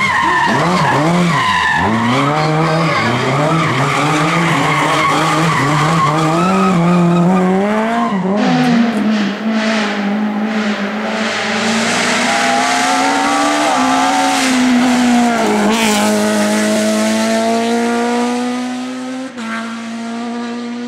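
Rally car engine driven hard, its note climbing and dropping again and again through gear changes. In the last few seconds it settles into one long steady climb as it pulls away.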